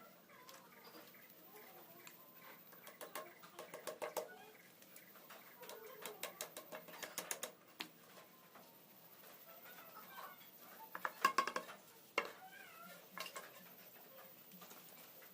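Short clusters of quick, light taps and clicks from hand work on bamboo, with faint bird calls in the background.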